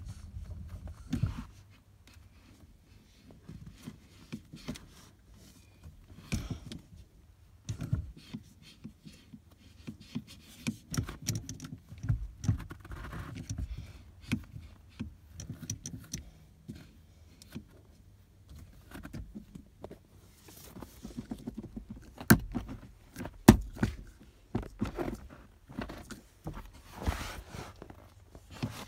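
Car cabin noise in a 2015 Infiniti QX60: a low steady rumble with frequent irregular clicks and knocks. A couple of sharper, louder knocks come about two-thirds of the way through.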